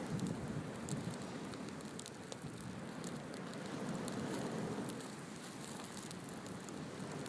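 Wood fire burning and crackling, with a steady low rush under scattered sharp pops and ticks.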